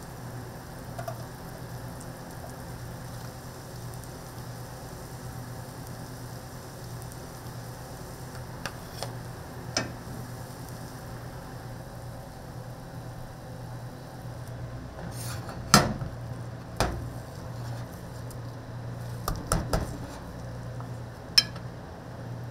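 Food frying in a pan with a steady sizzle over a steady low hum, broken by a few sharp metallic clanks and taps of a utensil against the pan, the loudest ones in the second half.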